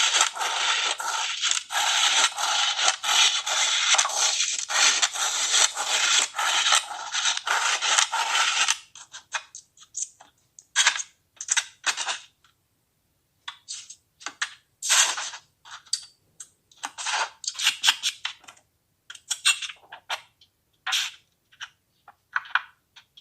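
Kinetic sand being cut, giving crisp, crackly scraping and crumbling sounds. For about the first nine seconds the cuts run together in a dense, continuous stream, then they come as separate short strokes with pauses between them.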